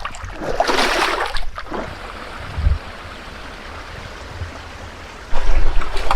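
Creek water at a beaver dam splashing and running: a noisy burst of water about half a second in, then a steadier rush. A loud low rumble comes in near the end.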